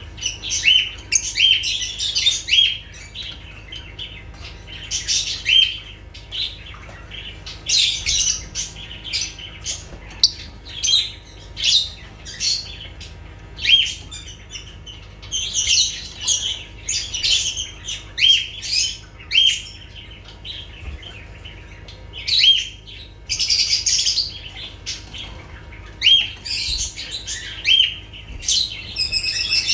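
Lovebirds calling: short, sharp, upward-hooked chirps about once a second, broken every few seconds by louder, harsher calls.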